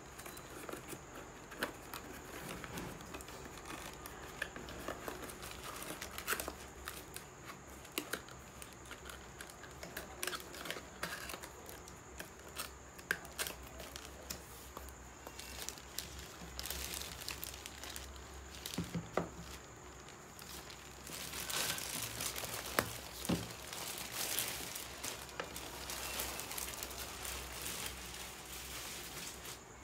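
Unboxing handling noise: a small cardboard box's flaps opened and handled with clicks and taps, over a clear plastic bag that crinkles. The crinkling grows denser and louder about two-thirds of the way through as the plastic is pulled off.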